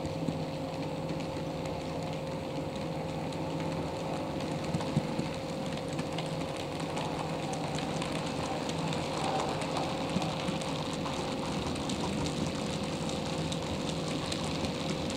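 A 00 scale model goods train running by: the model locomotive's small electric motor and the wagons' wheels clicking and rattling along the track, over a steady hum.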